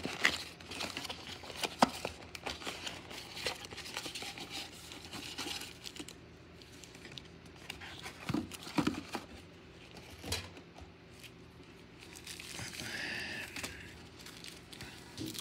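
Trading card pack wrappers crinkling and tearing as packs are torn open and handled, with a few sharp taps partway through.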